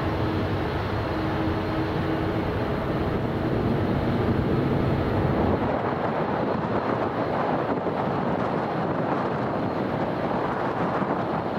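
Boeing 777's twin GE90 turbofans at takeoff thrust, a steady broad rumble whose high hiss thins from about halfway through as the jet draws away. Some wind noise on the microphone.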